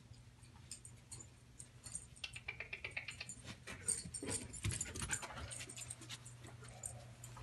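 Dog's collar tags jingling in quick, light, irregular clinks as the dog moves about searching, with soft footsteps on carpet.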